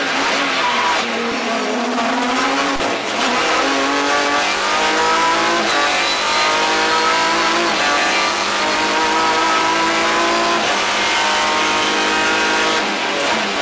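Renault Mégane Trophy race car's V6 engine heard from inside the cockpit: its note drops as the car brakes and shifts down, then climbs steadily under full acceleration, with a sudden dip at an upshift about three-quarters through before rising again.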